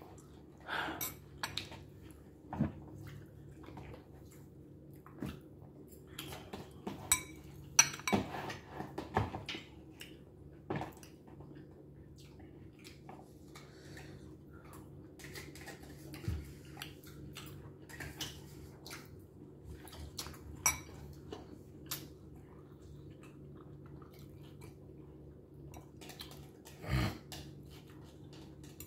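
Metal fork clinking and scraping against a glass bowl in irregular strikes as food is scooped up.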